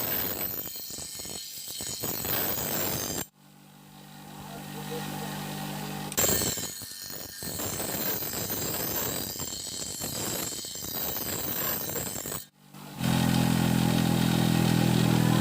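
Forge-workshop machinery in a run of separately cut clips: a rough, rattling mechanical noise twice, and in between a low steady hum. About three seconds from the end a loud, steady motor hum cuts in.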